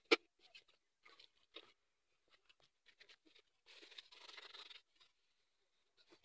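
Aluminium cooking pots (sufuria) being scrubbed by hand: a sharp clink of metal right at the start, then scattered small scrapes and taps, and about a second of steady scrubbing near the middle.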